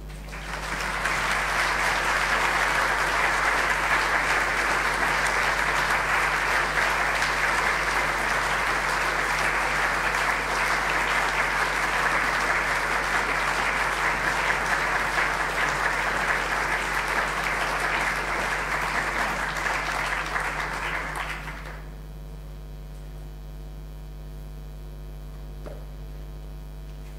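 An audience applauding steadily for about twenty seconds, then stopping fairly suddenly, leaving a low steady electrical hum.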